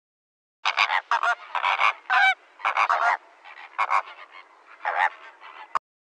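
Recorded flamingo flock honking, the sound effect played by a children's board book's sound button. A run of separate honks, loudest in the first second and a half, cuts off abruptly with a click near the end.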